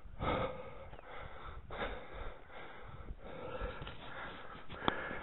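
A man breathing hard while walking, winded and out of shape, with a breath about every second. A short click near the end.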